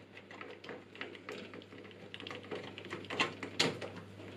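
Hand screwdriver turning the screw that holds an expansion card's bracket in a PC case: a run of small irregular clicks and ticks, with a few louder ones about three seconds in.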